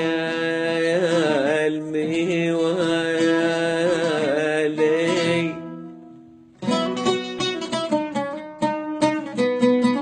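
Syrian folk mawwaliya music: a held, ornamented melodic line fades out about six seconds in. Then a plucked string instrument takes up a quick run of notes.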